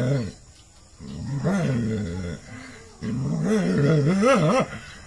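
Dog growling in wavering bursts that rise and fall in pitch: a short one about a second in and a longer one from about three seconds in.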